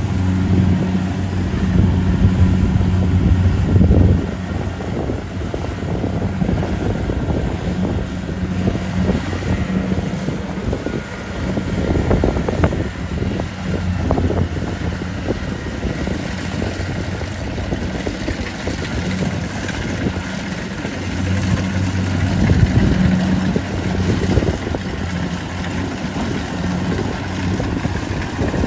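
Kubota DC70 Plus combine harvester working while it cuts rice: a steady diesel engine hum together with the noise of the cutter and threshing machinery. The hum is heavier for the first four seconds and again about two-thirds of the way through.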